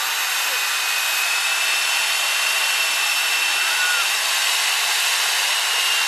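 Corded electric heat gun running steadily, its fan blowing hot air onto the face of an ice block: a loud even rush of air with a high whine over it. Ice carvers use it to melt the carved surface smooth and clear.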